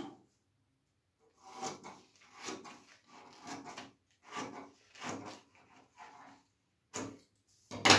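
Scissors cutting through pattern paper, snip after snip at about two cuts a second, then two sharp clicks near the end.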